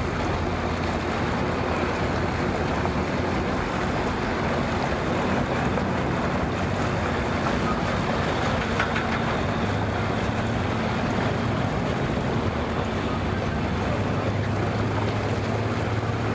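Boat motor running at low speed, a steady low hum under a wash of wind and water noise; a deeper hum joins about ten seconds in.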